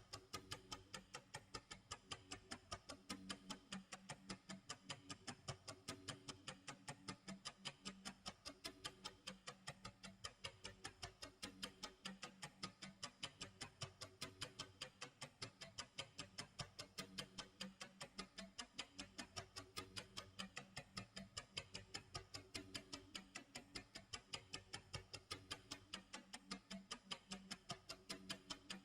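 Faint tick-tock clock sound effect, ticking steadily and evenly.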